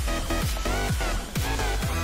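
Electronic dance music with a heavy beat: a deep kick drum drops in pitch on each hit, about twice a second, under synth lines.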